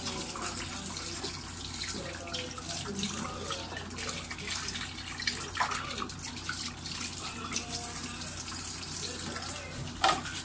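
Tap water running into a sink while a plastic electric-fan blade is scrubbed with a soapy sponge under it, with small scrapes and handling knocks and one sharper knock near the end.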